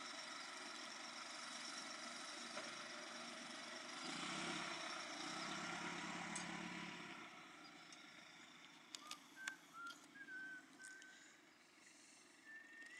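Engine of a Roadrunner hay squeeze running steadily as it drives off with a load of hay bales, louder around four to seven seconds in, then fading as it moves away. A few short, high chirps come near the end.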